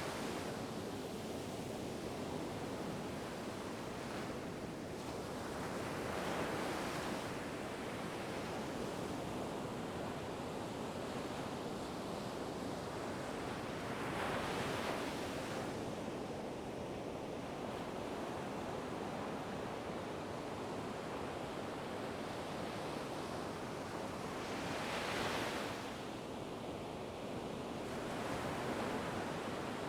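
Ocean surf: a steady wash of water noise, with a wave swelling up and breaking about every eight to ten seconds.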